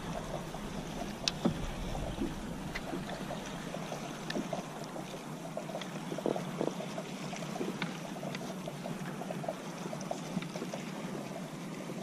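Water lapping around a kayak, with scattered light clicks and knocks.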